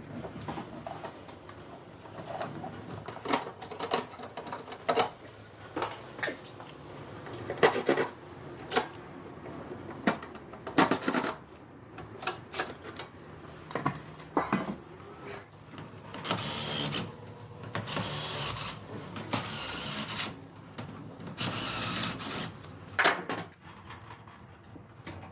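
Irregular clicks and knocks of hand work on installation parts, with a few longer hissing noises of a second or so near the end.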